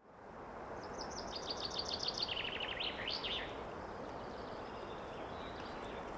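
Steady wind through trees at a forest edge, fading in at the start. About a second in, a songbird sings one quick phrase of repeated notes that step down in pitch and end in a short flourish.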